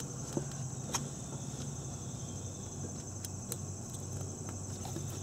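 A few faint, light clicks of a small metal fastener being handled and fitted by hand into the transmission case, over a steady high-pitched hum.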